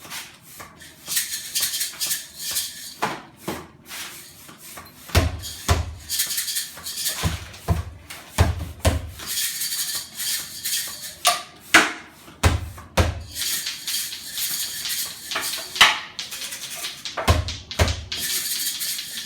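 A shaker-like rattle played in bursts of a second or two, alternating with pairs of low, drum-like thumps, in a loose, repeated rhythm.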